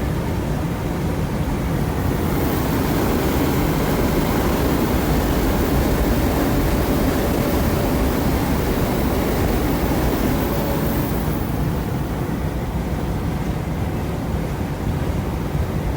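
Semi truck running on the road, a steady drone of engine and road noise, with a hissing rush that swells from about two seconds in and fades near the end.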